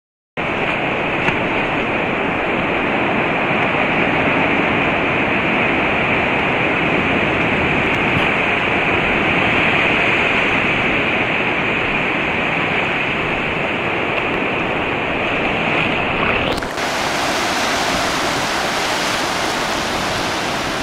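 Steady rush of ocean surf breaking on the beach, with no seal calls; the sound changes abruptly about sixteen seconds in.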